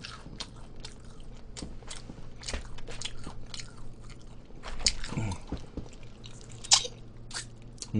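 Crisp, deep-fried chicken batter crunching and crackling as it is bitten and chewed, a quick run of sharp crunches with the loudest one near the end.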